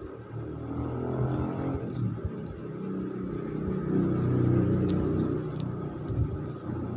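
A motor vehicle's engine passing by, a low rumble that grows louder to a peak about halfway through and then eases off.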